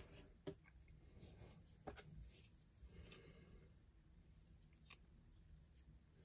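Near silence with a few faint small clicks, the sharpest about five seconds in, from a white plastic template being handled and clipped onto a metal lens mount adapter.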